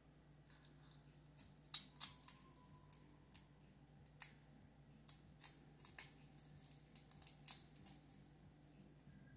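About a dozen faint, sharp clicks at an irregular pace, the loudest pair about two seconds in, over a steady low hum.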